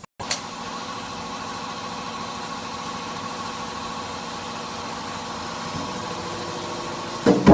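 Hydraulic power unit of a vertical oil barrel baler running steadily, an electric motor and pump with a steady hum and whine. There is a single click about a third of a second in, and a sudden louder sound breaks in just before the end.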